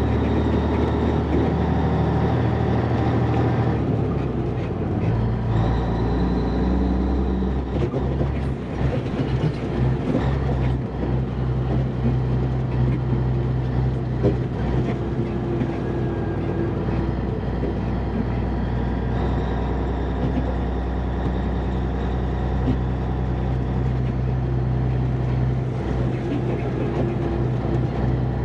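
The diesel engine of a 1984 Peterbilt 362 cabover semi, a Caterpillar, running at low speed as the truck creeps through a lot, heard from inside the cab. Its note shifts a few times in the first ten seconds, then holds steady.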